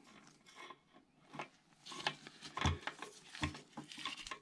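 Large adjustable wrench being fitted onto an engine's crankshaft snout: a few scattered light metal clicks and scrapes as the jaw is set and the wrench seated on the shaft.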